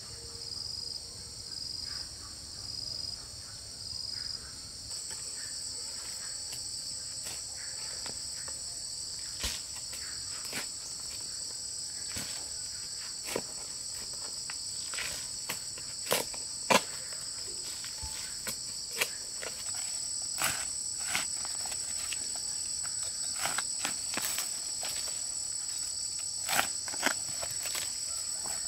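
Insects chirring, a high pulsing trill for the first few seconds that becomes a steady chorus from about five seconds in. Scattered sharp clicks and knocks sound over it, the loudest about halfway through and near the end.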